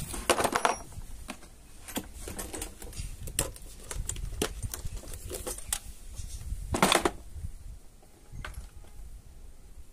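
Scattered small metallic clicks and knocks of lock hardware and tools being handled and fitted, with two brief louder scraping rustles, one near the start and one about seven seconds in.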